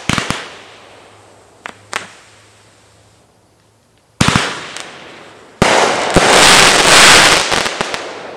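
Great Grizzly Bravo 500-gram firework cake: a few sharp pops as a crackle tail dies away, a short lull, then a loud shot about four seconds in and another about a second and a half later. The second is followed by a dense crackling rush lasting about two seconds, with a few pops in it.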